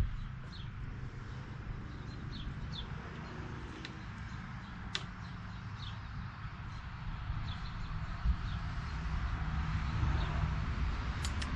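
Small birds chirping now and then over a steady low rumble, with a sharp click at the start and another about five seconds in.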